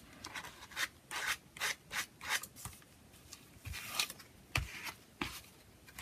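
Freshly glued paper being rubbed and pressed flat onto a journal page with fingers and a card: a run of short, irregular, soft rubbing and scraping strokes.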